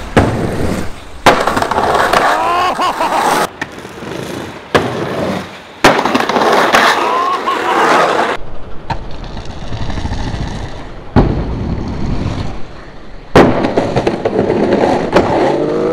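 Skateboard slamming down and its wheels rolling on shingles and concrete: a series of sharp board impacts from repeated roof drop-in attempts and landings, with rolling noise between.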